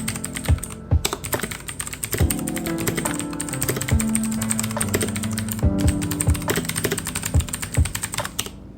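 Rapid, continuous typing on a computer keyboard, with a couple of brief pauses, over background music with a beat.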